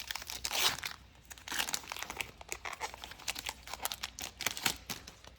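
A Pokémon booster pack's foil wrapper crinkling as it is handled and torn open, in fast, irregular crackles.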